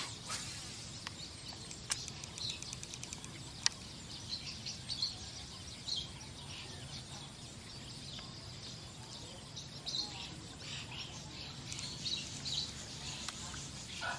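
Small birds chirping over a steady outdoor background hum, with a few sharp clicks in the first four seconds.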